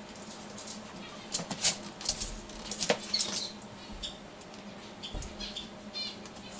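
Two dogs jostling and sniffing at each other: paws scrabbling, claws and fur rustling in a cluster of sharp scratches and clicks from about one to three and a half seconds in, then lighter scuffs.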